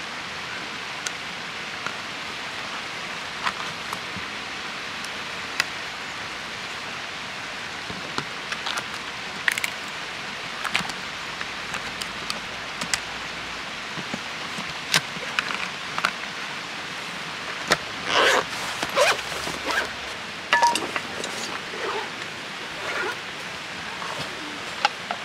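Light clicks and knocks of small lantern parts being handled and packed into a hard carrying case, scattered over a steady hiss, with a busier cluster of clicks a little past the middle.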